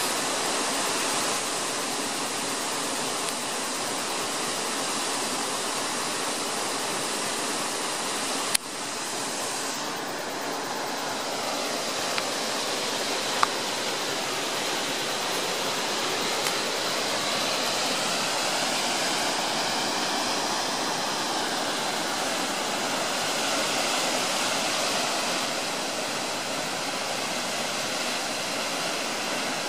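Waterfall plunging into a pool, a steady rushing of water throughout, with a sharp click a little over eight seconds in.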